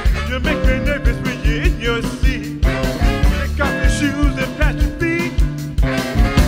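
Live soul band playing: electric guitar, bass and drum kit on a steady beat, with a man singing over it.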